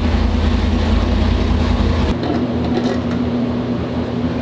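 540-cubic-inch big-block Chevrolet V8 running steadily on its first start-up. About two seconds in, the sound changes abruptly and the deep low rumble drops away, leaving a lighter steady engine tone.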